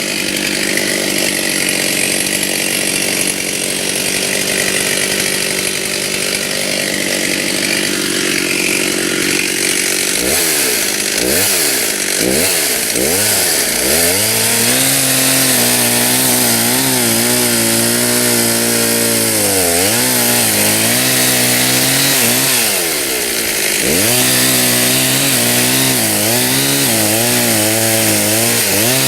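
Stihl two-stroke chainsaw cutting white oak at high revs. After about ten seconds its engine pitch starts dipping and climbing again several times, holding steady in longer stretches between the dips.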